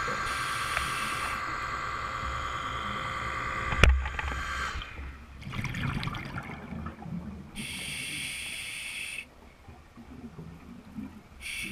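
Scuba regulator breathing heard underwater through a GoPro housing: hissing inhalations that start and stop sharply, alternating with low bubbling exhalations, and one sharp knock about four seconds in.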